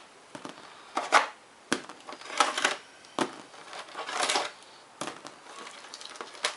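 Packaging being handled while a boxed RC truck is unpacked: irregular rustling and crinkling, with a few sharp clicks and knocks in between.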